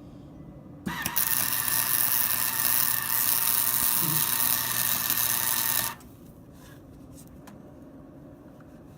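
Hobart welder's arc burning steadily as a weld is run on a chain hook on a steel skid steer bucket: a loud, even hiss with a low hum, starting about a second in and cutting off sharply after about five seconds.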